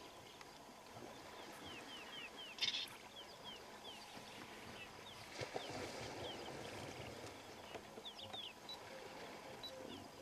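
Birds calling in short, repeated falling whistles, with a brief sharp high burst about a quarter of the way in. Around the middle, water splashes as an elephant thrashes in the shallow waterhole.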